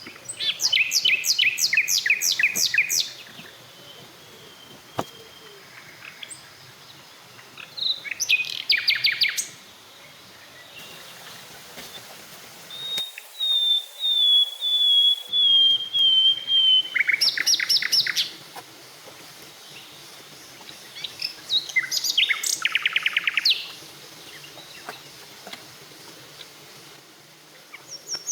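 Wild birds singing: short bursts of fast, repeated high notes every few seconds, one of them a slower run of notes falling in pitch.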